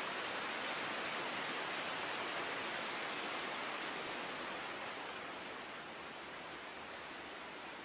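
Steady rushing outdoor noise with no distinct events, easing slightly about four to five seconds in.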